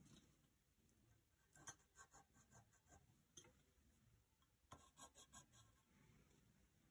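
Near silence, broken by two short runs of faint light ticks and scratches, about a second and a half in and again near five seconds: a pen marking leaves on a thin metal leaf profile wrapped round a glass vase, and fingers handling it.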